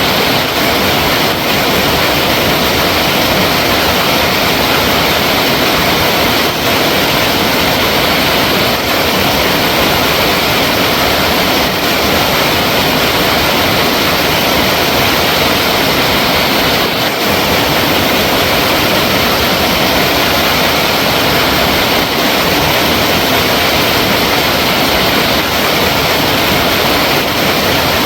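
Flowing water running steadily as one loud, even, unbroken rush.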